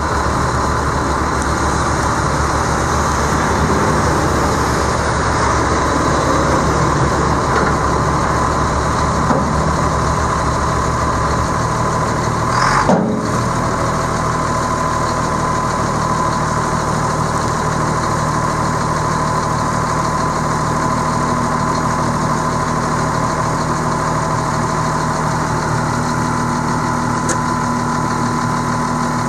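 Caterpillar 3126 7.2L six-cylinder diesel engine of a 1999 Chevrolet C6500 dump truck idling steadily, with one brief sharp sound a little before halfway through.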